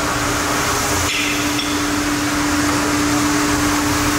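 Steady machinery hum, a constant drone with an even hiss, with a faint knock about a second in.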